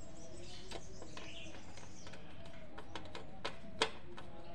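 A few scattered small clicks and taps of a screwdriver and screws being worked into a mixer's circuit board, the loudest near the end, with birds chirping faintly in the background.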